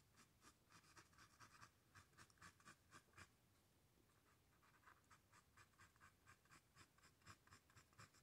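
Faint, rapid short strokes of a dual-tip brush marker's tip scratching across textured canvas, about three or four a second. They pause for about a second and a half midway, then start again.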